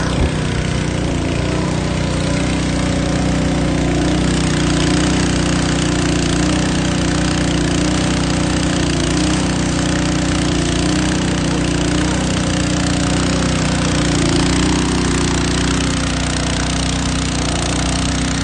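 Portable trash pump's small gasoline engine running steadily at constant speed, drawing pool water for the firefighters' hose lines, with a steady hiss of water spray over it.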